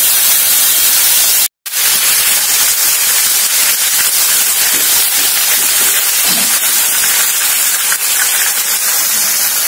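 Wet tomato, ginger and green chilli paste sizzling loudly and steadily in hot oil with cumin seeds in a frying pan. The sizzle cuts out for a split second about a second and a half in.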